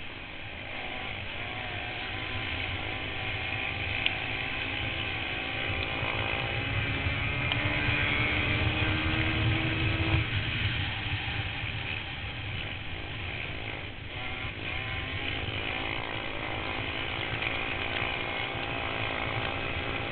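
Racing quad engines running hard, among them a Yamaha Banshee's two-stroke twin, their pitch rising and falling as the field goes around. Loudest about eight to ten seconds in, easing briefly a little later.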